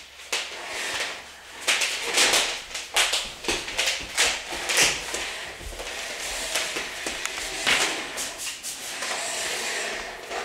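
A corded computer mouse dragged by its cable across a hard wooden floor, clattering and scraping in irregular short knocks.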